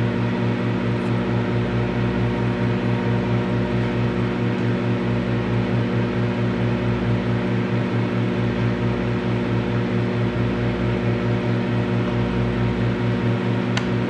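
Microwave oven running: a steady low hum with a whirring fan-like noise over it, and a few faint ticks near the end.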